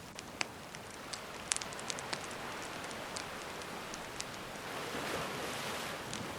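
Gentle sea waves washing ashore under a crackling wood campfire: a steady hiss with scattered sharp pops, and a wave swelling in about five seconds in.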